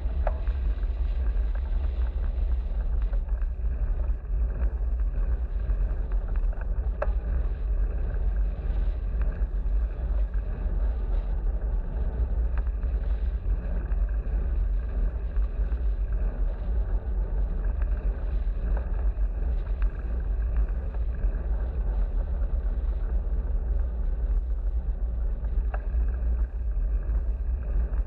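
Steady low rumble of wind buffeting an action camera's microphone on a moving bicycle, mixed with road noise, unchanging throughout.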